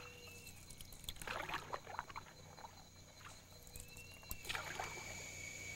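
Faint splashes of a canoe paddle dipping and pulling through the water: two short clusters of strokes, one about a second in and one near the end.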